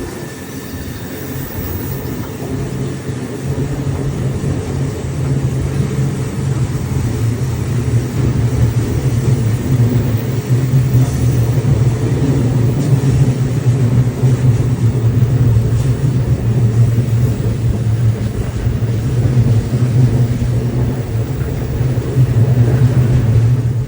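Rocky Mountaineer passenger train rolling along, a loud steady rumble heard from on board.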